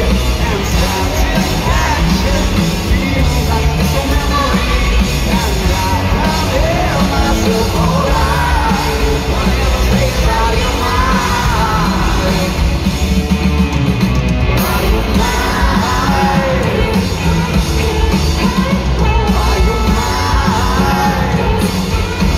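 Rock band playing live and loud, with electric guitar, bass and drums, a man singing into the microphone, and the crowd yelling and singing along.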